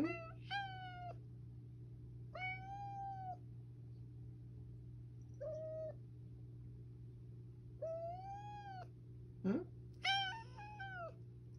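Domestic cat making a run of short, sweet calls, about six of them, each rising and falling in pitch, not the usual 'nyaa' meow. A brief low rising 'hm?' comes at the start and again just before the last call.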